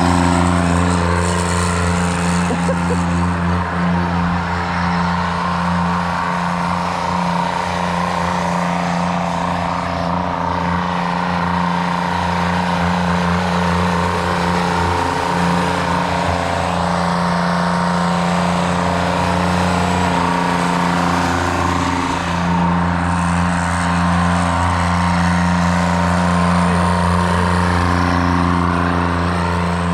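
Kubota G6200 lawn mower's diesel engine running steadily under way, with a newly fitted K03 turbocharger audible over it as a thin high whistle that comes and goes.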